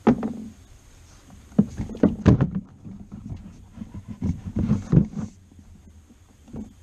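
Hollow plastic knocks and scrapes as a Silverado's air intake duct is gripped, pulled and wiggled loose in the engine bay. A loud knock comes right at the start, a cluster of knocks about two seconds in, more around four to five seconds, and a last faint one near the end.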